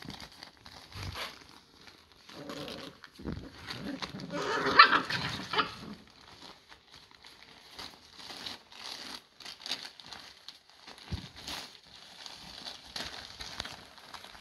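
American Staffy x American Bulldog puppies wrestling in their bed. A run of puppy play vocalizations comes about three to six seconds in, then scuffling and the rustle of newspaper bedding.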